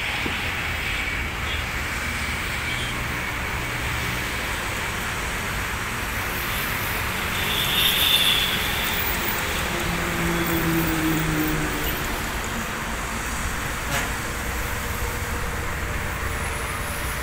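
Jet engines of an IndiGo airliner on the runway running with a steady, distant rumble and hiss, swelling slightly about halfway through.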